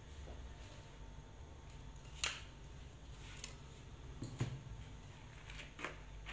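Quiet kitchen room tone with a low hum, broken by a handful of faint, short clicks and taps; near the end a hand starts working the steamed rechta noodles in a wooden bowl.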